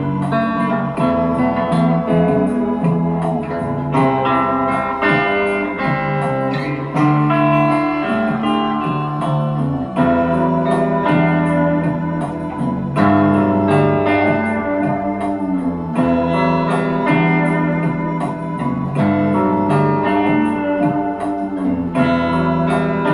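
Instrumental music led by guitar, with a sliding guitar line over steady chords and bass.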